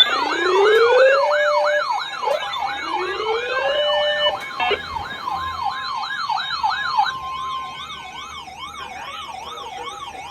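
Several sirens sounding together: a fast up-and-down wail about two to three cycles a second, with a couple of rising wind-up tones and a brief steady tone. They grow fainter after about seven seconds.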